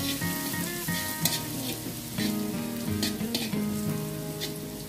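Minced garlic sizzling in hot oil in a wok, stirred with a slotted metal spatula that scrapes and taps against the pan a few times.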